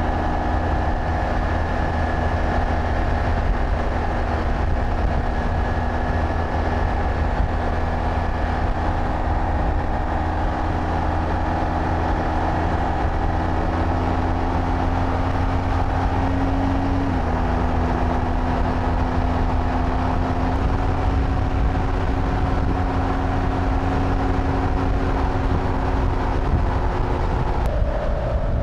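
Michelin Anakee Wild 50/50 knobby front tire humming on highway tarmac at speed, a steady droning tone about as loud as the exhaust, over the motorcycle's engine and wind rush. The hum's pitch steps down slightly a few times, most clearly near the end. Loud hum like this is typical of the aggressive off-road tread on pavement.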